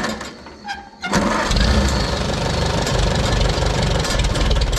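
Old tractor engine being started: the starter cranks briefly, then about a second in the engine catches and settles into a steady run.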